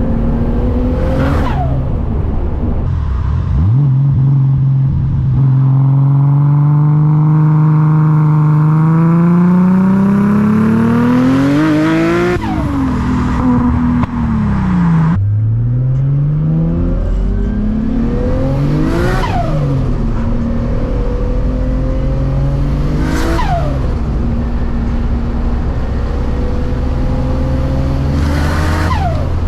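Nissan RB25DET turbocharged straight-six in an S15 Silvia pulling under load, its pitch climbing steadily for several seconds, dropping sharply about twelve seconds in, then climbing again and holding steadier. A few short sweeping sounds cut across it.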